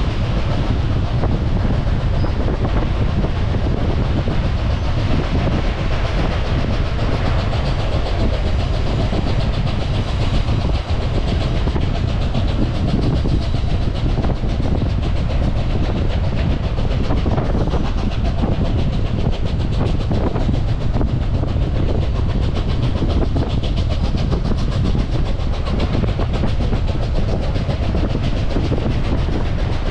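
Reading and Northern excursion train rolling steadily along the track, its wheels clacking over the rails.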